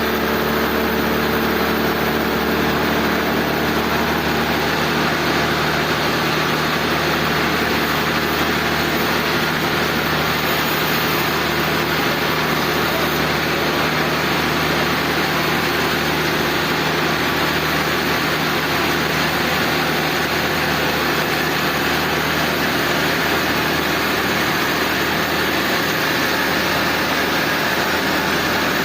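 Sawmill machinery running with a steady, unchanging engine drone.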